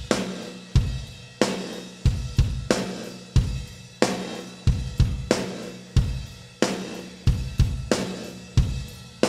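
Live rock drum kit playing a steady beat, a heavy hit about every two-thirds of a second with cymbals ringing over it, and low held notes underneath.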